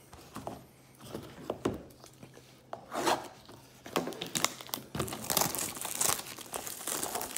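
Wrapping on a trading card hobby box crinkling and tearing as the box is opened by hand. The crackles are sparse at first and come thicker from about three seconds in.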